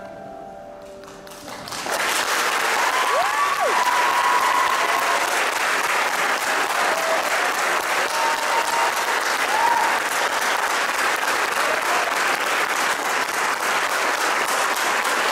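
The last chord of a cello and piano duet fades out, and about two seconds in an audience breaks into steady applause. A few whistles rise and fall over the clapping.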